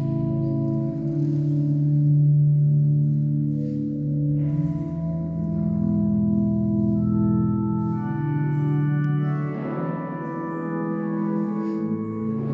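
Organ music: slow, sustained chords, with higher notes coming in about eight seconds in.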